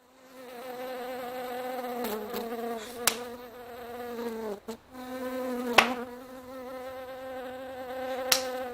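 A flying insect buzzing in a steady drone that breaks off briefly about halfway through. Three sharp smacks cut through it, about three, six and eight seconds in.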